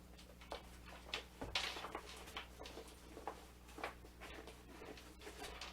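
Handling noises from a fabric welder's backpack: soft rustling and scattered light clicks and knocks as its flaps and pouches are worked, over a steady low hum.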